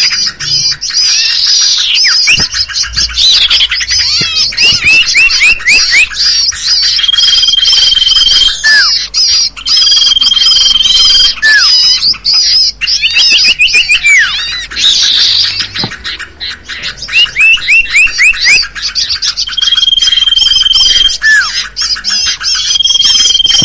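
Birdcall lure recording for trapping common ioras: many small birds chattering and calling together. A long level whistle, ending in a short falling note, comes four times, and quick runs of short rising notes sound in between.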